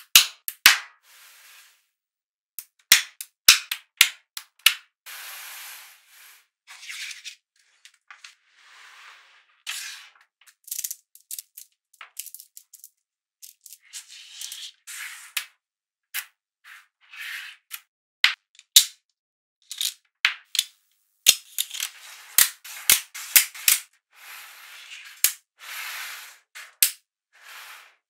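Small magnetic balls snapping together with sharp clicks, often several in quick succession, between short rattles of the balls rolling and sliding against each other. There is a quieter stretch near the middle.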